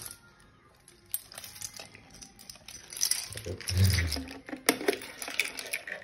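A bunch of keys jangling and clinking in the hand as the call-point test key is picked out and fitted, with a dull bump about four seconds in.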